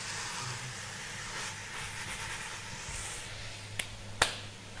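Marinated beef and lemongrass sizzling with a steady hiss as it is stir-fried in a stainless steel pot, with two sharp clicks near the end.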